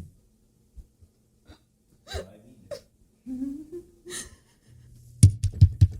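A person's short gasps and whimpering breaths, with a brief rising vocal sound in the middle. Near the end come a quick run of about six loud, sharp thumps.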